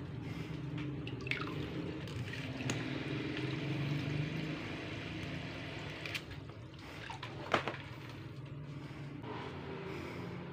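Water splashing and dripping in a plastic bucket as a wooden stick stirs it and a homemade fishing float is dipped in, with a few light knocks, the sharpest about seven and a half seconds in. A steady low hum runs underneath.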